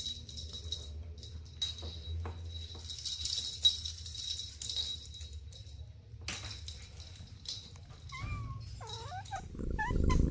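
Kittens giving short, high mews that bend up and down in pitch, about two seconds before the end. Beneath them runs a faint, steady high jingling with light rustles and clicks.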